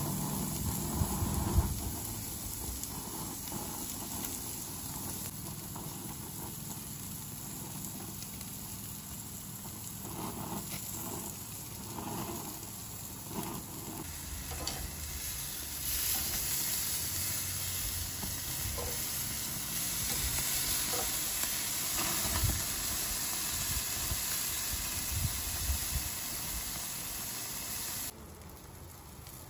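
Pork tenderloins sizzling on a hot grill grate: a steady crackling hiss that gets quieter near the end.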